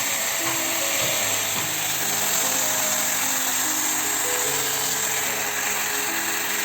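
A small electric appliance motor running with a steady high whir, under background music.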